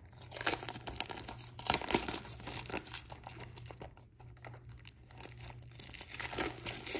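Thin clear plastic shrink-wrap being torn and peeled off a small cardboard box by hand, crinkling in quick, irregular crackles.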